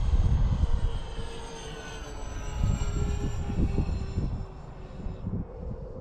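Remote-control B-24 Liberator model with four electric brushless motors flying by, its high propeller and motor whine dropping in pitch as it passes. Wind buffets the microphone.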